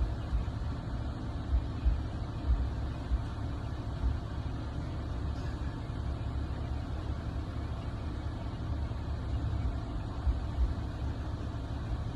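Steady low rumble of a car idling, with occasional short low bumps.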